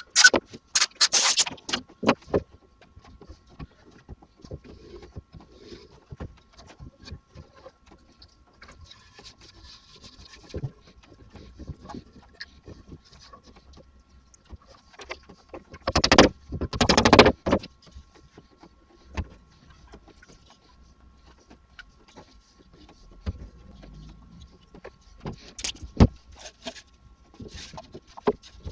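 Handling noise at a workbench: wooden door stiles and a plywood panel knocked and set down, with scattered clicks and taps while glue is applied. About halfway through there is a louder burst of rapid clicking and scraping lasting over a second.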